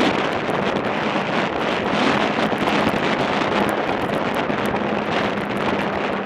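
Snowmobile running steadily at trail speed, a steady engine hum under heavy wind noise rushing over the microphone.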